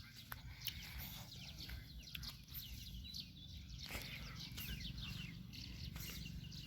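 Faint outdoor birdsong: many small birds chirping in short, quick, falling notes, over a low steady rumble.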